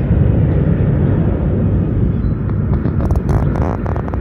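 Jet engines of an Airbus A320-214 at takeoff, a loud, steady low rumble. A few short clicks come near the end.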